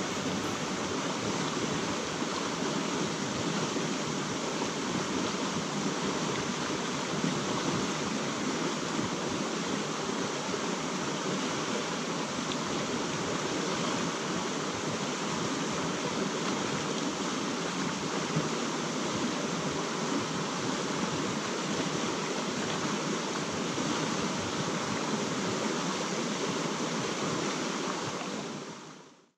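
Creek water rushing steadily over a shallow rocky riffle, a continuous even roar that fades out near the end.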